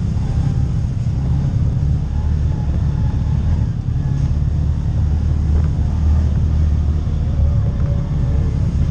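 CFMoto UForce side-by-side under way on a rough dirt trail: a steady, low engine drone at an even level.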